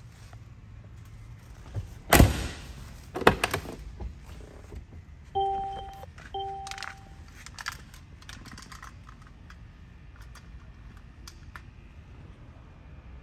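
A heavy car door shutting with a solid thunk about two seconds in, followed by a few latch clicks. Near the middle come two short electronic chime tones about a second apart, typical of a car's warning chime with a door open.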